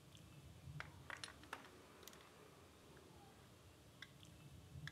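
Near silence with a few faint metal taps and clicks, mostly between about one and two seconds in, as a hammer taps a screwdriver against the oil filler cap to loosen it anticlockwise. A couple more light clicks come near the end as the cap is turned by hand.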